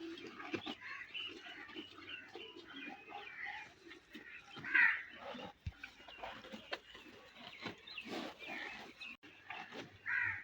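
A buffalo tearing and chewing mouthfuls of fresh grass, a steady run of crunchy rips and munching clicks. A bird calls briefly about halfway through.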